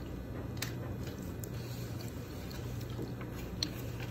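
Faint wet mouth sounds of eating soup from a ceramic spoon, with a few small clicks, over a steady low hum.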